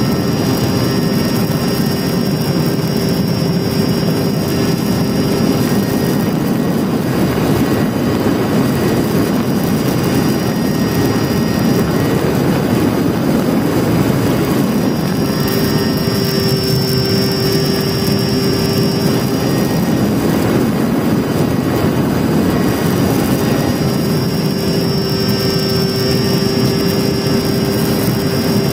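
Mini Talon FPV plane's brushless motor (Sunnysky 2216 KV1250) spinning an APC 9x6 propeller, heard through the onboard camera with a constant rush of airflow. A steady motor whine sits over the rush; it drops out twice for several seconds and returns each time.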